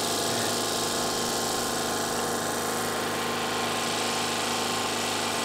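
Portable petrol generator running steadily, a constant engine drone that does not change.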